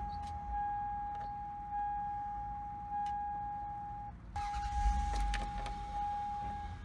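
Warning chime of a 1998–2000 Toyota Sienna: a steady electronic tone that swells about every 1.2 seconds, breaks off briefly about four seconds in, then resumes. A short spell of low rumble and rustle from handling comes right after the break.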